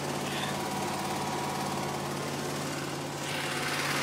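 Zero-turn lawn mower engine running steadily at idle, with a louder rushing noise joining near the end.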